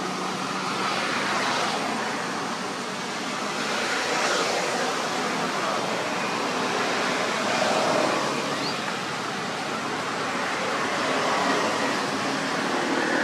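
Steady rushing outdoor background noise, swelling and easing every few seconds.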